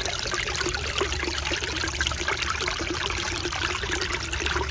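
Shallow stream water trickling and babbling steadily over its bed.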